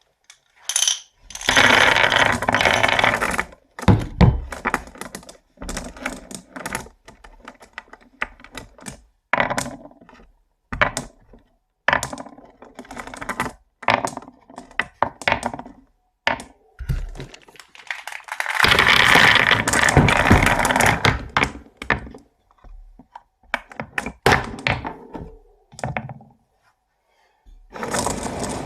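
Marbles rolling and clacking down a HABA wooden marble run: scattered sharp clicks as they hit track pieces, with two long, dense rattles of many marbles together, one about a second in and one around the middle.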